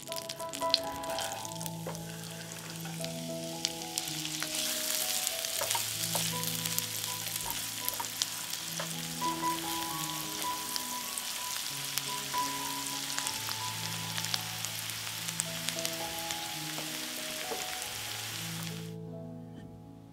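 Food sizzling and crackling in hot oil in a frying pan, under background music. The sizzle grows louder a few seconds in and cuts off suddenly shortly before the end.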